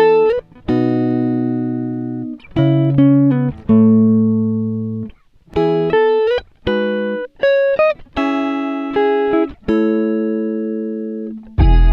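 Background music: a plucked-string melody played in short phrases of separate notes, each starting sharply and fading, with brief pauses between phrases.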